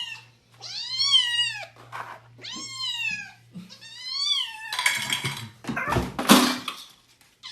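A cat meowing three times, each call rising and then falling in pitch. About two seconds of harsh, noisy sound follow near the end.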